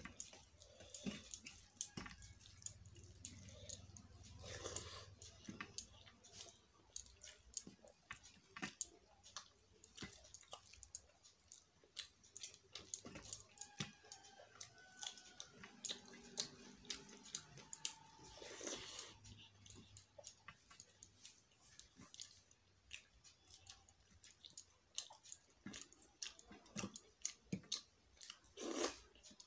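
Eating by hand: fingers mixing rice with dalma on a plate, and chewing, made up of many small clicks and mouth sounds. A brief louder sound comes near the end.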